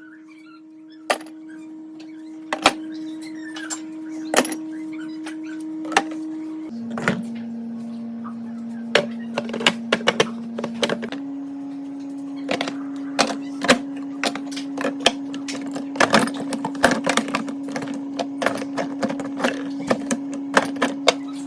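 Many short clicks and knocks of household items being handled, busiest in the second half, over a steady hum that drops in pitch about seven seconds in and rises slightly about four seconds later.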